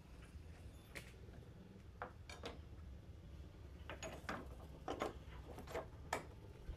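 Faint, irregular light clicks and metal clinks, about a dozen, as the axle spacers are fitted into a motorcycle wheel hub and the wheel is handled.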